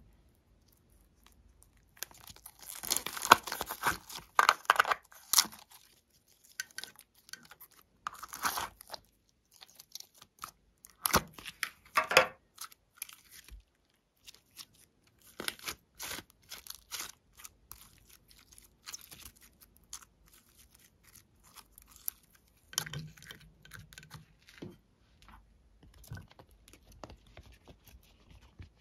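Glossy slime being stretched and pulled apart by hand: sticky crackling, popping and tearing sounds in irregular bursts, loudest in the first few seconds.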